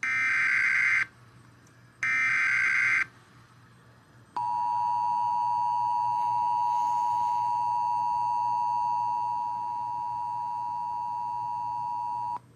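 Emergency Alert System header: the last two of three screeching data bursts, about a second each with a second's gap, then the steady two-note EAS attention signal (853 and 960 Hz) sounding for about 8 seconds before it cuts off. Together they mark the start of a new alert broadcast.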